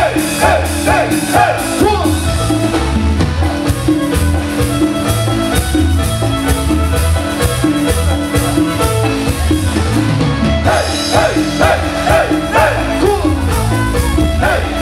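Live Latin dance band playing a song: a steady beat and repeating bass line under horns and keyboard, with the lead singer's voice coming in near the start and again after about eleven seconds.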